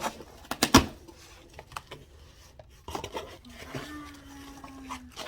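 A package being handled and torn open: sharp crackles and rustles of the packaging, the loudest under a second in and more about three seconds in. A short steady tone follows near the end.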